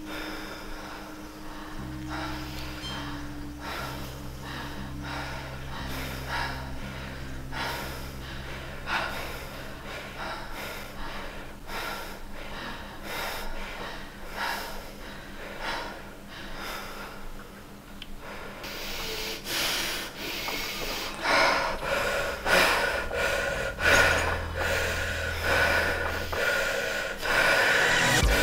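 Electronic soundtrack: sustained low drone tones that change pitch in steps, under a run of short noisy pulses that grow louder and denser about two-thirds of the way through.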